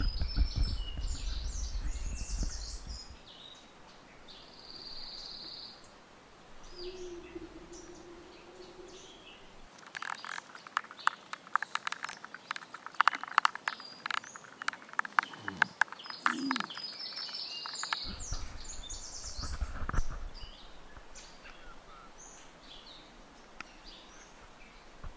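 Small birds chirping in woodland. In the middle comes a stretch of rapid, irregular crackling clicks from a wood campfire burning.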